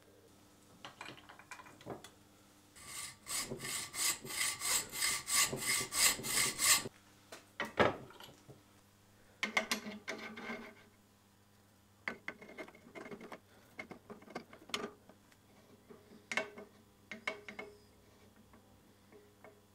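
Hand work on machined steel parts: scattered light clicks and knocks of metal being handled and adjusted. About three seconds in comes a run of about ten quick, even strokes lasting some four seconds.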